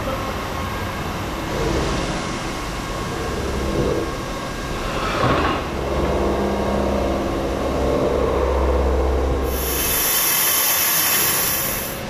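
Factory machinery noise: a steady low rumble and clatter of machines running, with a loud high hiss starting about two-thirds of the way through.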